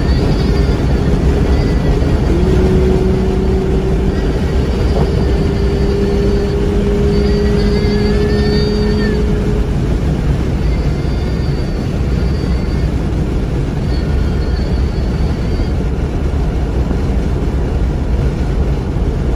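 Car at speed on an oval race track, heard from inside the car: a steady, loud mix of engine, wind and tyre noise. An engine drone creeps up in pitch through the first half, then falls away about halfway through.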